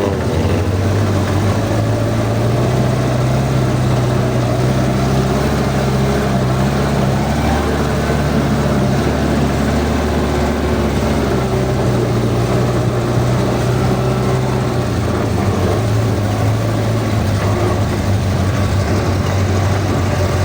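Off-road 4x4 vehicle engine running steadily with a low, even drone.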